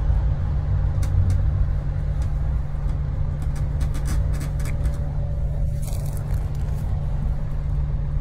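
Steady low rumble of a moving road vehicle heard from inside the cabin, with scattered light clicks and rustles.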